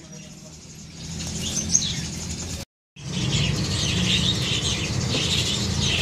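Many caged songbirds chirping and twittering together over a steady low background rumble. The sound cuts out completely for a moment a little under three seconds in, then the chirping resumes louder.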